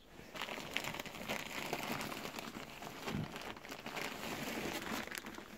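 Wrapping paper and a gift bag crinkling and rustling as wrapped presents are handled, a continuous crackle of many small ticks.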